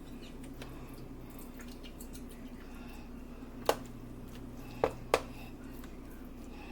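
Three sharp knocks in a kitchen, the last two close together, over a steady low hum.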